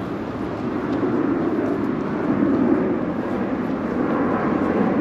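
Steady low rumble of distant engine noise, swelling a little after the first second.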